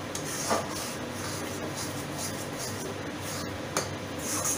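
Spatula scraping and stirring a thick mawa (khoya) sweet mixture around a steel kadhai, with a couple of sharper scrapes against the pan, about half a second in and near the end.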